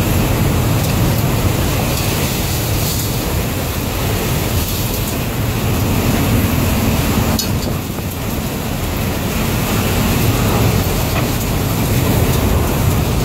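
Steady roar of storm wind and rough sea, with the wind buffeting the microphone.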